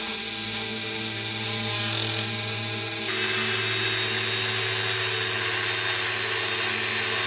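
Angle grinder with an abrasive disc running and grinding the steel handles of a pair of pliers, a steady motor whine under a hiss of disc on metal. The grinding noise gets brighter about three seconds in.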